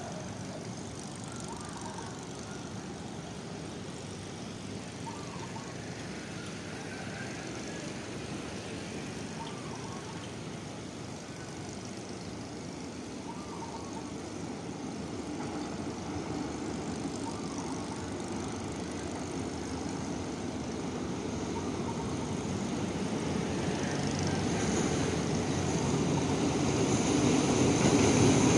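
Alsthom diesel-electric locomotive approaching with a passenger train, its rumble growing steadily louder through the second half and loudest at the end as it draws near, over a steady background hum.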